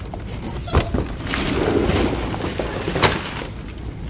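Thin plastic wrapping rustling and crinkling as a wrapped toy is pulled out of a cardboard box, with a few sharp crackles, the loudest about three seconds in.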